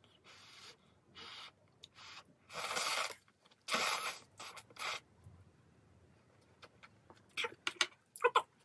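Ramyeon noodles being slurped in several short, hissing sucks, the loudest two near the middle. A few quick light clicks follow near the end.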